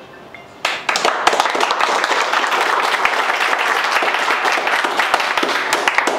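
A room of people clapping and applauding, starting suddenly about half a second in after a few faint short beeps.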